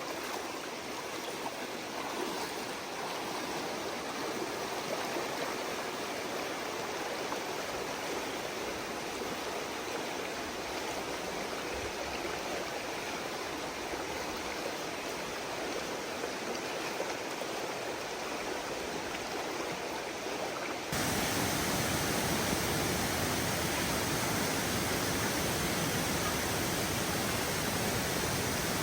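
Steady rush of flowing water on a forest stream or waterfall. About twenty seconds in it abruptly becomes louder and deeper.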